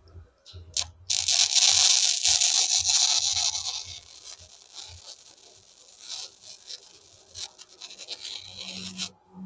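Electric arc welding on a steel yard-windmill frame. A loud crackling hiss starts about a second in and lasts about three seconds, then gives way to softer crackling and ticks.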